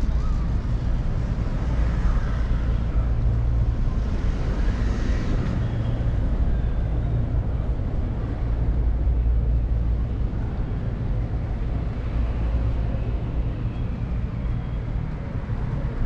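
Steady city traffic: a continuous low rumble of cars on the road, with one vehicle passing by about five seconds in.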